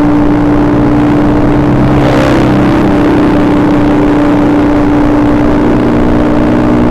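Carbureted Honda Beat scooter's single-cylinder engine running at a steady high speed while riding. It makes a constant drone over a low rumble.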